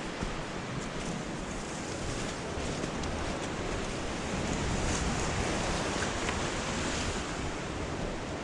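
Ocean surf washing steadily into a rocky cove, swelling a little midway, with some wind buffeting the microphone.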